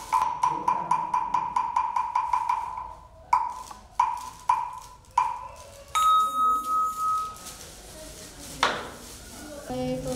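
Ritual percussion on a wood block, likely a Vietnamese temple wood block (mõ). Spaced strokes give way to a fast, even roll over the first three seconds, then a few slower strokes. About six seconds in, a bell-like tone rings once and fades, and a single duller knock follows near the end.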